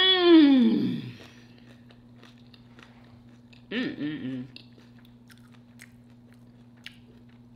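A person eating crunchy nacho chips. First comes a long voiced sound falling in pitch, the loudest part. A shorter hummed murmur follows about four seconds in, and scattered crunching clicks of chewing come after it.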